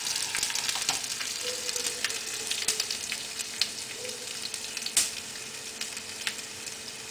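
Mustard seeds and cumin spluttering in hot oil with chillies: a steady sizzle with scattered sharp pops, one sharper pop about five seconds in.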